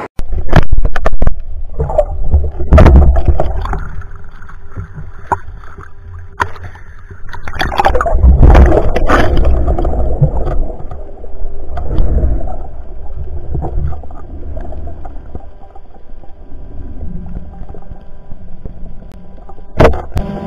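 Muffled underwater rumble and water movement picked up by an underwater camera while a diver swims with a speargun, with irregular swells and several sharp knocks.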